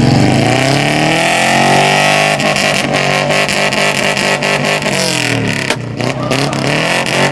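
Car engine revving, its pitch rising and falling in repeated swells, with a brief dip just before six seconds.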